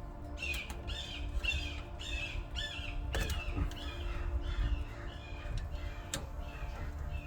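A bird calling over and over, about two calls a second, louder at first and fading later, with a couple of sharp clicks partway through.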